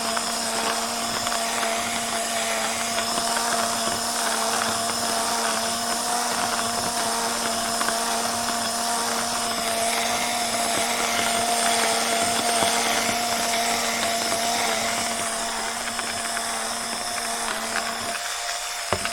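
Small battery-powered burr coffee grinder running steadily, its motor humming under a continuous crackle of beans being ground.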